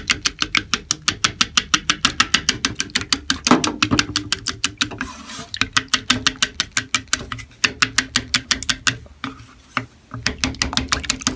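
Wooden chopsticks beating eggs in a bowl: a fast, steady clicking as the sticks strike the bowl, about six or seven strokes a second, with a brief pause near the end.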